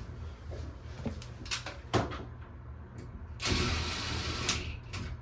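Clicks and knocks of hand tools and parts at a shower mixing valve, then a hiss lasting about a second.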